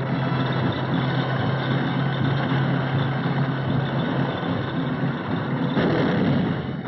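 Tracked amphibious tractors running over sand: a steady low engine drone under a dense grinding noise, with a louder surge of noise near the end.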